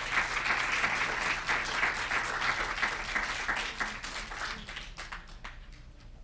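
Audience applauding, thinning out and dying away about five seconds in.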